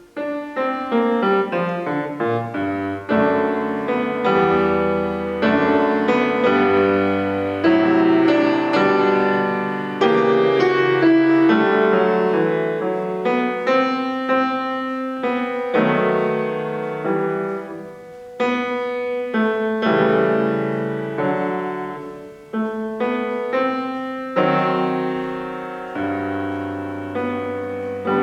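Solo acoustic piano playing a classical piece: a run of many struck notes over changing bass notes, each note ringing and fading.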